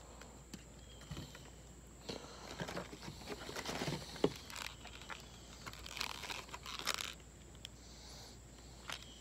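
Rustling and crinkling of lure packaging being handled, in irregular bursts, with a sharp click about four seconds in.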